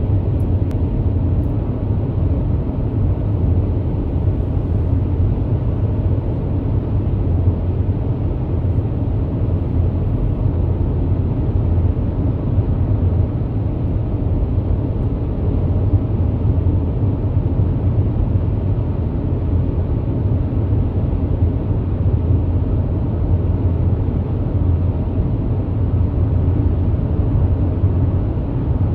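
Steady low rumble of a car cruising along a highway, tyre and road noise mixed with the engine, heard from inside the cabin.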